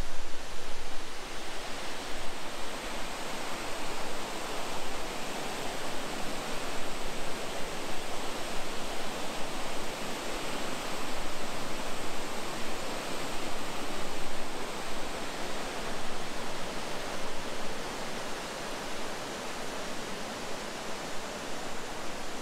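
Running water rushing steadily, with no breaks or separate splashes.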